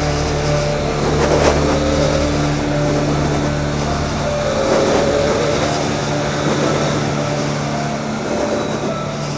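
Triumph Tiger 800 XCx's inline three-cylinder engine running at a steady pace as the motorcycle is ridden on a dirt road, under a continuous hiss of wind and tyre noise.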